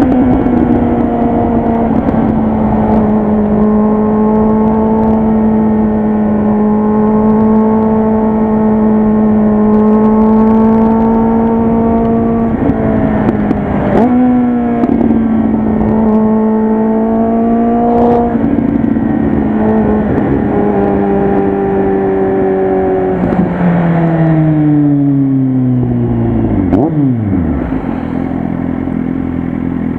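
Kawasaki Z800 inline-four with a loud Jeskap aftermarket exhaust, running at steady cruising revs. A few quick gear changes briefly break the note about halfway. Then the revs fall as the bike slows, and it settles to idle near the end.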